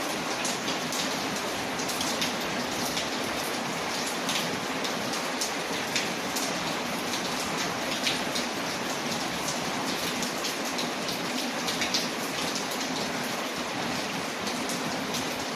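Steady rain on a window mixed with a crackling wood fire: an even hiss of rain, sprinkled with many small sharp crackles and ticks.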